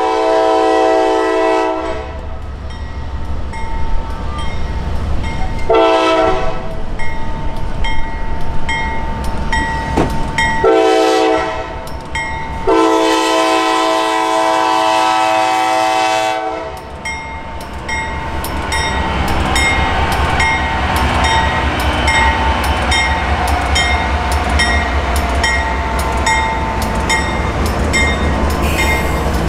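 Diesel locomotive air horn blowing a series of blasts for a grade crossing: one ending about two seconds in, a short one near six seconds, then a shorter and a long blast ending about sixteen seconds in, over a crossing bell dinging steadily. Then the GE AC44C6M and the following locomotive pass close by with a deep diesel rumble and wheel-on-rail noise while the bell keeps ringing.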